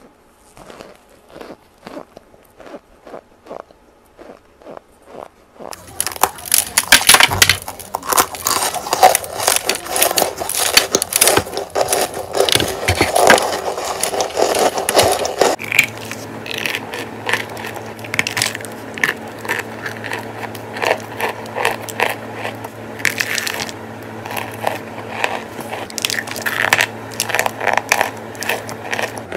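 Close-up biting and chewing of cornstarch chunks: crisp, crackly crunches, sparse and faint for the first few seconds, then much louder and denser from about six seconds in. From about sixteen seconds in a steady low hum sits under the crunching.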